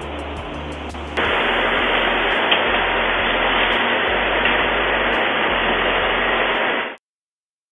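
Steady static hiss with a low hum beneath, thin and cut off above the mid treble as in low-quality recorded audio. It jumps louder about a second in and cuts off abruptly near the end.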